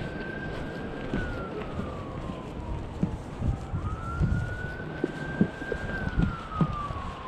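An emergency-vehicle siren wailing: its pitch holds high, slides down over a couple of seconds, climbs back about four seconds in and starts falling again near the end. Footsteps on wooden steps thump underneath from about three seconds in.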